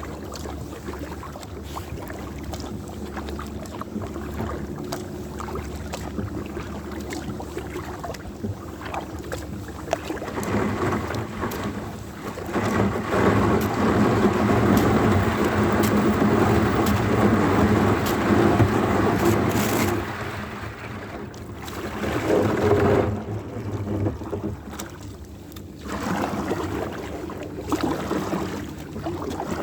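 Wind buffeting the microphone over water sounds from a kayak out on a lake. It swells much louder for several seconds in the middle, with shorter gusts after.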